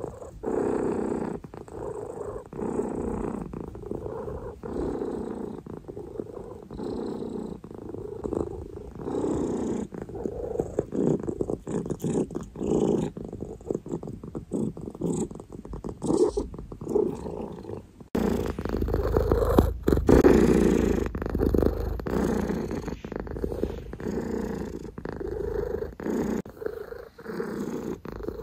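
Domestic cat purring close to the microphone, swelling and fading with each breath. The recording cuts abruptly about two-thirds of the way through to a deeper, fuller stretch of purring.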